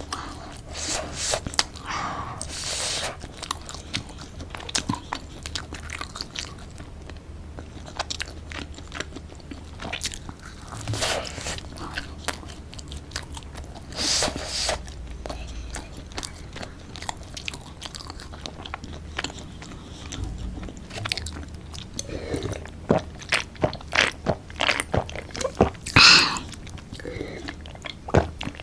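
Close-miked eating of tortilla-wrapped chicken: repeated bites, crunching and wet chewing, with a few louder bites or rustles scattered through.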